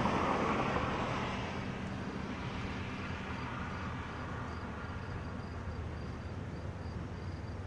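Honeybees buzzing over an open hive, a steady low hum. At the start, a distant engine's noise fades away over the first second or two.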